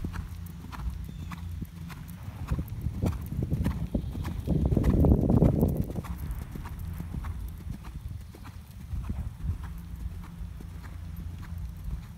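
Hoofbeats of a horse cantering on a sand arena: a steady, even rhythm of soft thuds. About halfway through a brief, louder rush of noise rises over them.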